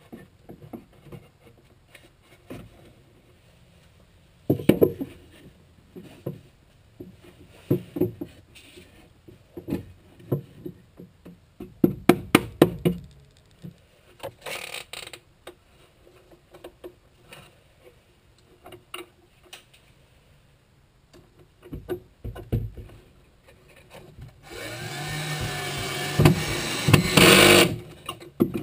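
Woodworking in a shop as short wooden framing braces are fitted: scattered knocks and taps of wood, with a quick run of knocks about twelve seconds in. Near the end a power tool runs for about three seconds, its motor speeding up and then slowing down.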